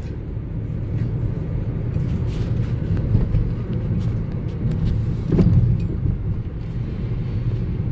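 Car driving, heard from inside the cabin: a steady low rumble of engine and tyre noise that swells briefly about five and a half seconds in.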